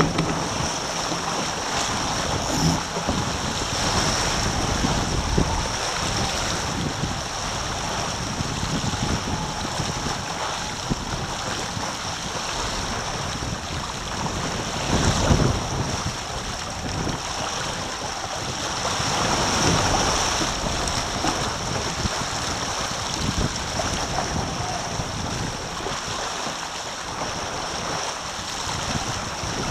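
Taipan sport catamaran sailing at around nine knots: water rushing and hissing along the hull with spray, and wind buffeting the microphone. A louder splash or gust comes about fifteen seconds in.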